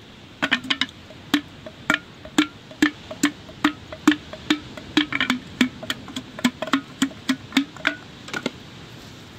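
Wooden pestle pounding chilies in a mortar for rujak: sharp wooden knocks at a little over two a second, some doubled, starting about half a second in and stopping shortly before the end.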